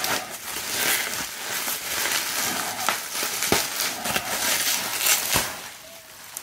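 Plastic bubble wrap crinkling and crackling as it is handled and peeled off a graded comic slab, with a few sharp clicks in the middle, getting quieter near the end.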